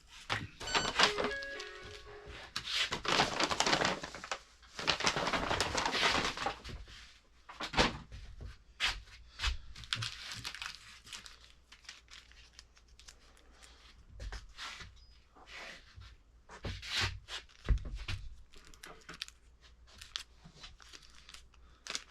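Packaging being handled: plastic crinkling and tearing in irregular spells, with a few light thunks.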